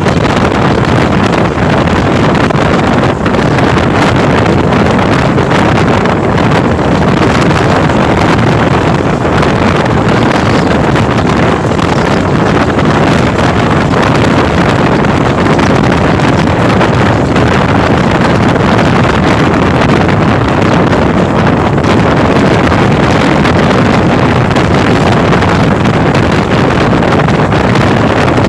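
Steady, loud rush of running noise and wind on board an express passenger train at high speed, with wind buffeting the microphone.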